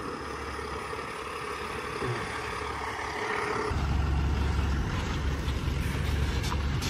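Semi tractor's diesel engine running as it hauls a mobile home section. About four seconds in the sound changes abruptly to a heavier, steady low rumble, with the truck close by.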